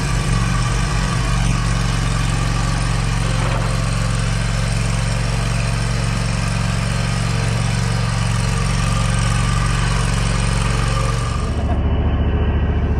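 Exmark stand-on mower's engine running steadily while it pushes a leaf plow. Near the end the high hiss drops away and the engine note turns lower and stronger.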